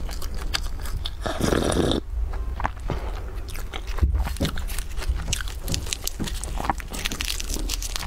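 Close-miked eating: someone bites and chews flaky pastry, with many small crunches and chewing clicks. Foil baking cups crinkle as they are handled.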